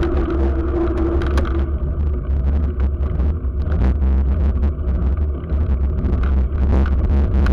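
Steady low rumble of wind buffeting and road noise on a bicycle-mounted camera's microphone while riding on asphalt. The hiss above it drops away about two seconds in.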